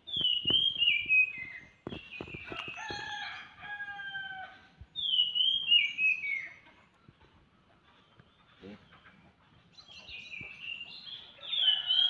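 A rooster crowing, mixed with another bird's stepped, falling whistled phrase repeated three times. A few sharp knocks near the start come from the camera pole being handled.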